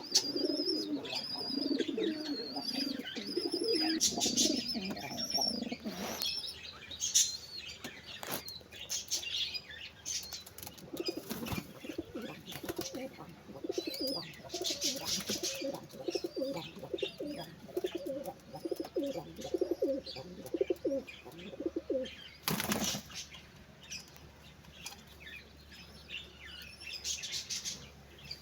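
Pigeons or doves cooing in long runs of low pulsing coos, while small birds chirp high and repeatedly. A few brief wing flaps, the loudest about three-quarters of the way through.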